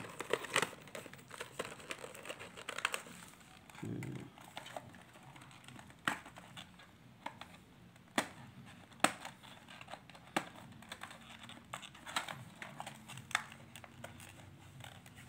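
Cardboard retail box of an external hard drive being handled and opened by hand: crinkling and rustling of the packaging, broken by scattered sharp clicks and snaps spread a second or more apart.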